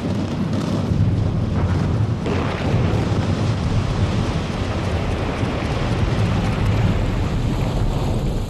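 A brick building collapsing in an explosive demolition: a long, loud, deep rumble of falling masonry. It grows hissier about two seconds in.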